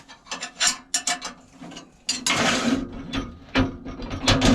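Metal lathe parts clicking and clanking as a wood lathe's tool rest and its holder are handled and fitted, with a longer scraping rub starting about two seconds in.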